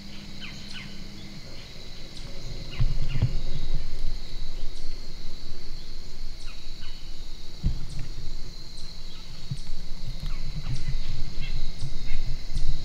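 Autumn woodland ambience: a steady high insect drone with short, falling bird chirps scattered through it, over a low rumbling noise on the microphone that grows louder about three seconds in.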